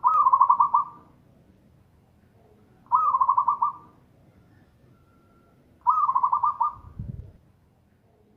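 Zebra dove (perkutut) singing: three alike phrases about three seconds apart, each a fast run of rolling coos lasting about a second. A short low thump sounds under the end of the third phrase.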